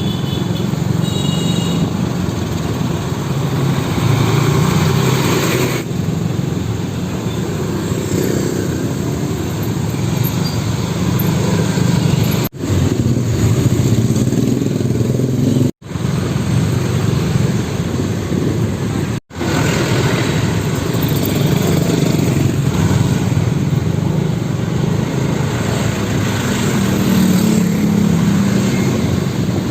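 Road traffic of heavy diesel trucks, engines running and idling. The sound drops out briefly three times near the middle.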